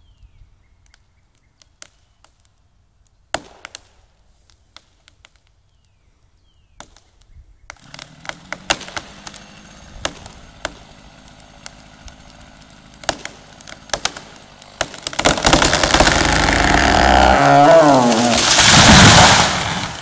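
Large tree falling after a felling cut. Scattered sharp cracks of splitting wood grow more frequent, then a loud rush of the crown sweeping down ends in a heavy crash as the trunk hits the ground near the end.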